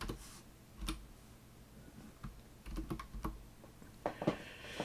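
Computer keyboard being typed on: scattered single keystrokes with pauses, then a quick run of several keys around the middle and a few more near the end.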